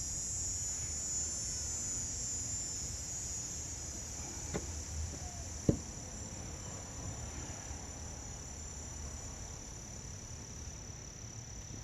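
A steady high-pitched drone with a few light knocks around the middle; the sharpest knock comes a little past halfway.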